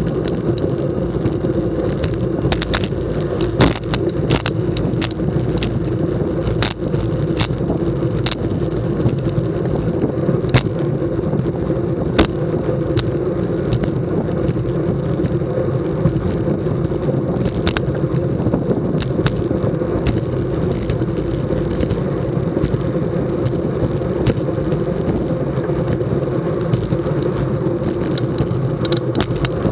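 Racing bicycle ridden fast in a group on a concrete road: steady tyre rumble and wind noise on the bike-mounted camera, with scattered sharp clicks and knocks.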